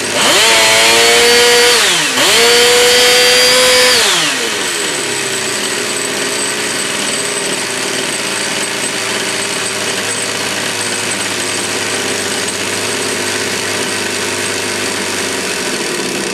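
Yankee B30 model two-stroke engine, fitted with a new 2CM ignition, revved twice, each rev held for about two seconds, then settling to a steady idle.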